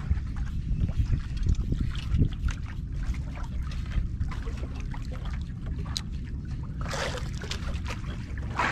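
Wind noise on the microphone and water lapping against a small boat's hull at sea, with scattered light clicks and a brief rush of water about seven seconds in.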